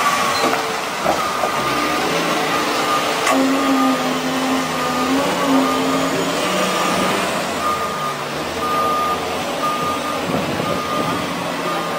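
Bulldozer's diesel engine running, with its reversing alarm beeping steadily about once a second.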